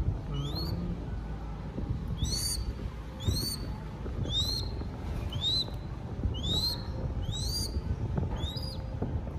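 Baby crested goshawk giving a run of high, thin begging calls, about one a second. Each is a short rising-then-falling cheep. A low rumble runs underneath.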